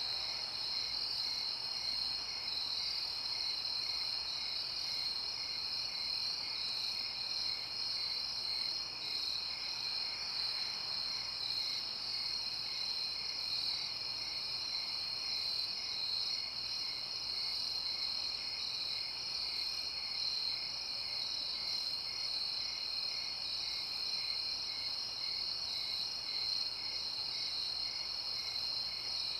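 Night insect chorus of crickets chirping: a steady, dense high-pitched trill, with a softer chirp repeating evenly about twice a second beneath it.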